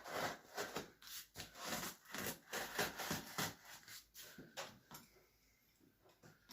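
Cardboard delivery box being handled, with irregular scraping and rubbing strokes that stop about five seconds in.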